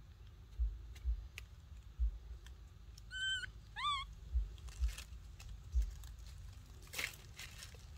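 Baby macaque giving two short, high squeaky calls about three and four seconds in, the second rising then falling. Dull low thumps recur throughout, and dry leaves crackle near the end.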